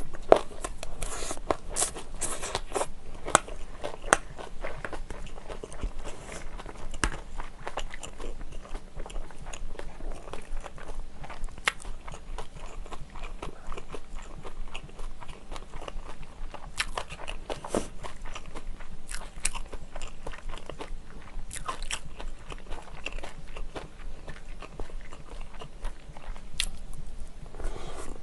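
Close-miked chewing of a mouthful of tuna kimchi fried rice, with crunching and sharp clicks scattered throughout, a quick cluster of them in the first few seconds.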